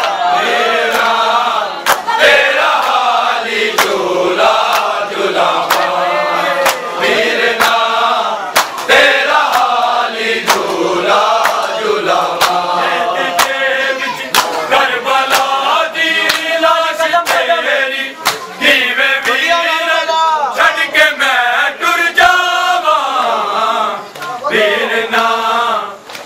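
Male voices chanting a noha, the Muharram lament, over rhythmic chest-beating (matam): sharp hand slaps land roughly once a second under the chant.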